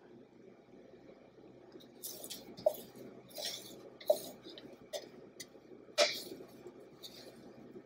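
Spatula scraping the last of a powdered-sugar glaze out of a mixing bowl: a run of short scrapes and knocks, roughly one a second, starting about two seconds in.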